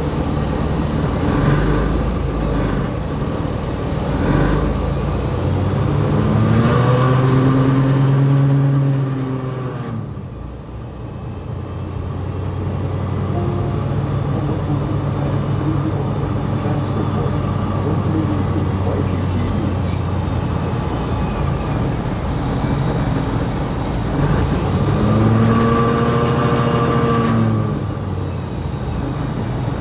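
Interior sound of a New Flyer Xcelsior XD60 articulated bus's diesel engine under way. The engine note climbs and then drops twice, about six seconds in and again near the end, over a steady rumble of road and drivetrain noise.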